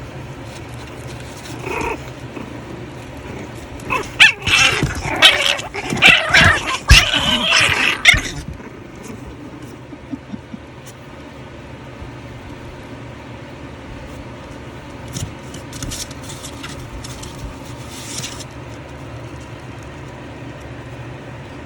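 Jack Russell–Pomeranian puppies yapping: one short call about two seconds in, then a loud, busy run of calls lasting about four seconds from about four seconds in. A low, steady background fills the rest.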